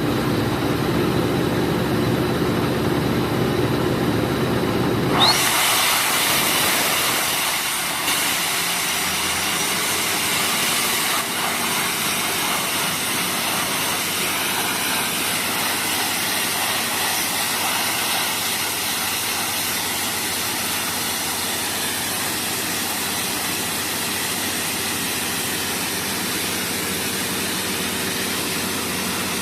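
A high-pressure air compressor's engine running. About five seconds in, a loud rush of compressed air starts suddenly and keeps blowing steadily: air blasting through the drill to open up the topsoil.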